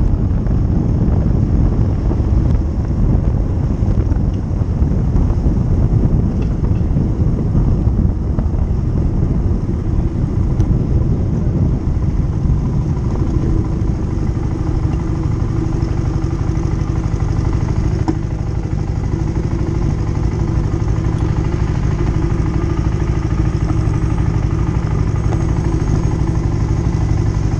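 Motorcycle engine running while being ridden, loud and continuous; from about halfway the engine note becomes steadier, as at a constant cruising speed.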